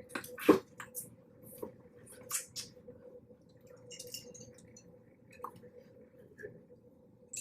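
Wet eating sounds from a seafood boil: sauce-coated seafood squelching and being pulled apart, with scattered short clicks and crackles, the loudest about half a second in.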